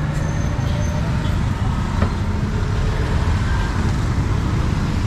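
Busy street-market ambience: a steady low rumble of motorbike and car traffic with indistinct voices, and a single sharp click about two seconds in.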